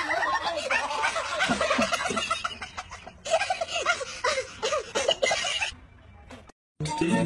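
Rapid, high-pitched cackling laughter in quick repeated bursts, dying away in the last second or so.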